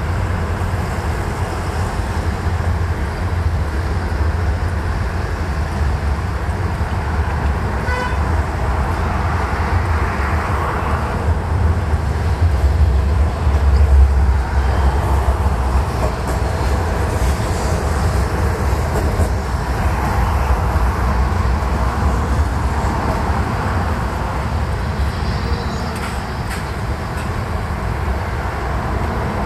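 City street traffic: a steady rumble of passing vehicles, with a short car horn toot about eight seconds in and a vehicle passing close, loudest about halfway through.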